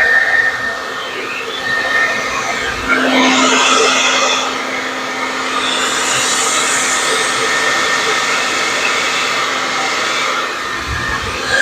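Handheld blow dryer running steadily, blowing air across wet pour paint. It gets louder about three seconds in, then eases off a little.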